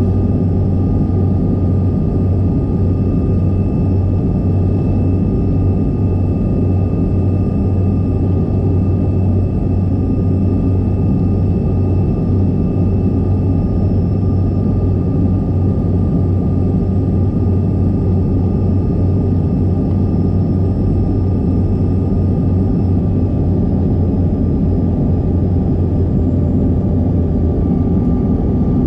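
Steady cabin noise inside a CRJ200 regional jet on approach: the rush of airflow with a low drone and a thin steady whine from its rear-mounted GE CF34 turbofan engines.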